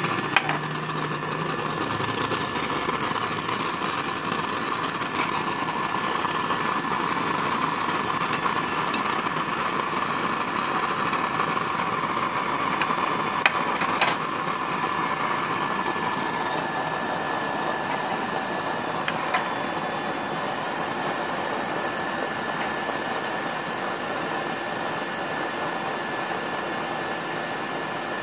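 Used-oil stove burner running with a steady rushing noise of the flame and its air feed, with a faint steady whine. A couple of sharp clicks come about halfway through.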